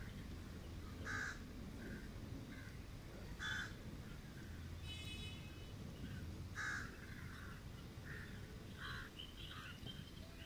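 Faint crows cawing: a few short harsh caws spaced a couple of seconds apart, with fainter calls near the end, over a low steady background rumble.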